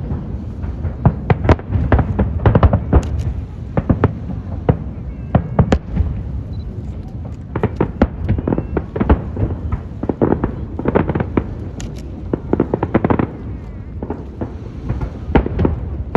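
Aerial fireworks going off in a continuous barrage: many sharp bangs and crackles in quick succession over a steady low rumble, thickest in clusters every few seconds.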